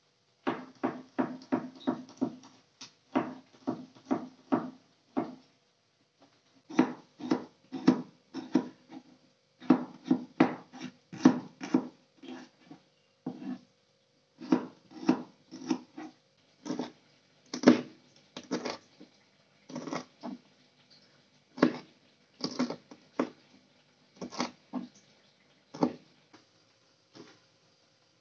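Kitchen knife chopping on a plastic cutting board: short knocks in quick runs of about three strokes a second, broken by brief pauses.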